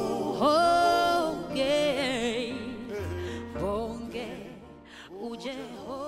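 Woman singing a gospel song with vibrato over keyboard accompaniment; long held notes in the first second or so, then the singing grows quieter.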